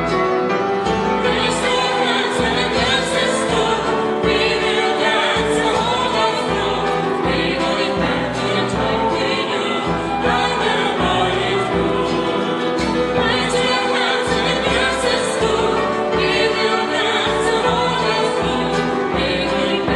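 A vocal ensemble singing a folk-style song in harmony, live, with instrumental accompaniment.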